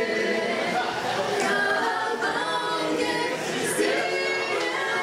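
Group of voices singing together in harmony, with little or no instrumental backing.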